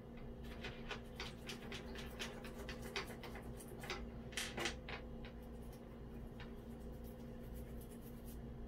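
Toothbrush scrubbing tomato ketchup over green corrosion on metal fishing-rod fittings, the acid loosening the corrosion: a run of short, irregular scratchy brush strokes, with a faint steady hum underneath.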